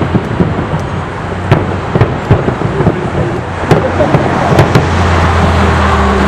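Aerial fireworks shells bursting with sharp bangs at irregular intervals over a continuous rumble and crackle. About five seconds in, a steady low hum rises beneath the bangs.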